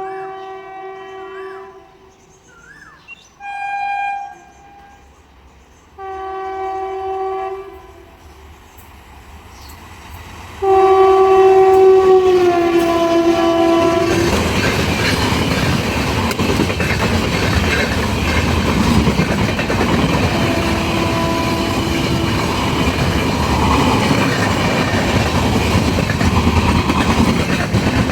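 Indian Railways train sounding its horn in several blasts as it approaches. The last long blast drops in pitch as the train passes close by. Then comes the loud, steady noise of the train running past.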